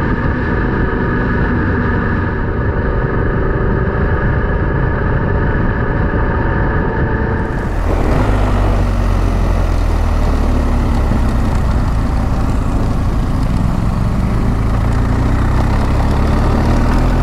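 BMW GS boxer-twin motorcycle engine running steadily while riding a gravel road, with wind and tyre noise on the microphone. About eight seconds in the sound changes abruptly to a lower, rumblier mix of engine and wind as the recording switches to another camera.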